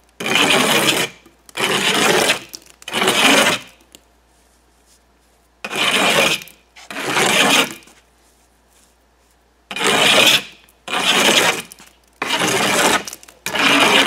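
Steel margin trowel scraping the face of partly set mortar off brick joints: about nine rough, rasping strokes, each under a second. They come as three, then two, then four, with pauses of about two seconds between the groups.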